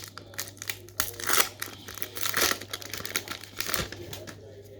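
Wrapper of a trading card pack being torn open and crinkled by hand, in irregular rustling bursts.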